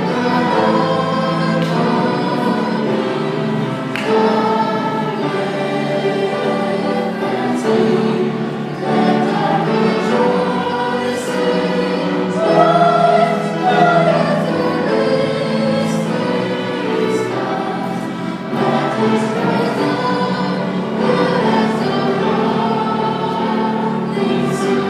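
A choir singing, with many voices holding sustained chords.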